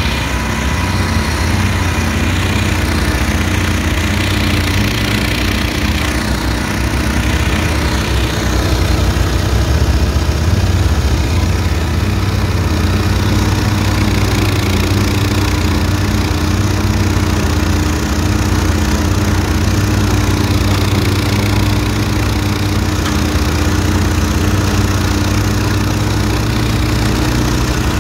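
The engine of a GTFM 120 LE tow-behind ATV flail mower runs steadily, together with its spinning flail rotor, while a quad tows it through grass; the quad's engine runs underneath. The sound is loud and even throughout.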